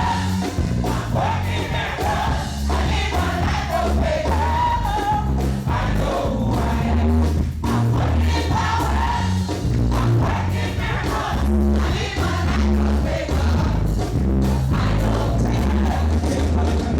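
Live gospel worship music: a group of singers over a band, with a heavy bass line moving in steady note changes.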